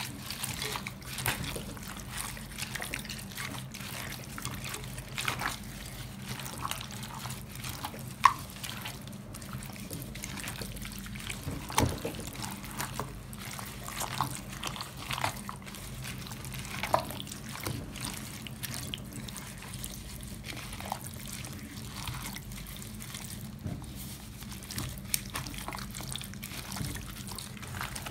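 Wet squelching and squishing of gloved hands kneading chicken pieces in a thick yogurt marinade in a glass bowl, with irregular small smacks. A steady low hum lies underneath.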